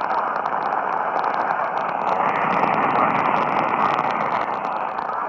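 Radio receiver static: a steady rushing hiss with rapid, evenly spaced clicking interference.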